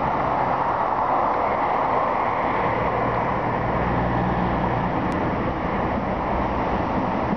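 Diesel multiple-unit passenger train approaching slowly. Its low engine drone grows stronger from about halfway through, over a steady background rush.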